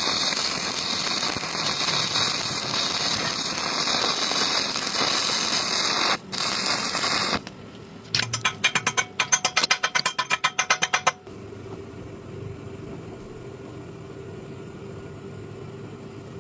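Stick-welding arc crackling and sizzling steadily for about seven seconds, then cutting off. A second later comes a quick run of about fifteen sharp taps, around five a second, followed by a low steady hum.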